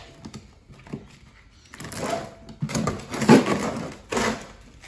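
Duct tape being ripped off a plastic lawnmower grass catcher, in three tearing pulls about two, three and four seconds in, the middle one the loudest.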